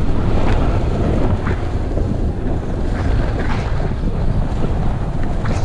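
Heavy wind buffeting on a camera microphone carried by a rider moving fast downhill, with a few brief scrapes of edges on packed snow.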